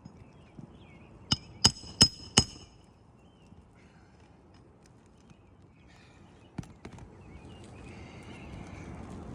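Four quick hammer blows, about three a second, each with a short metallic ring, most likely nailing down a replacement 3-tab asphalt shingle. Two lighter taps follow a few seconds later.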